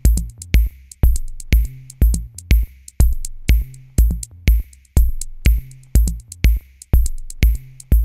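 Background music with a steady electronic beat: a deep kick drum about twice a second, with sharper hits between the kicks.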